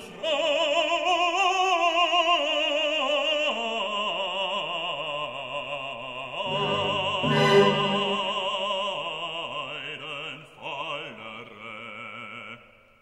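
Background music: an operatic voice singing long held notes with vibrato over classical accompaniment.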